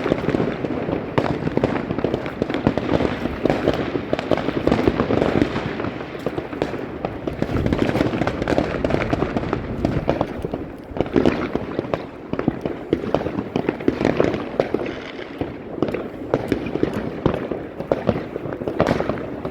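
New Year fireworks going off in a dense, unbroken barrage: many bangs and crackles overlapping, with no pause between them.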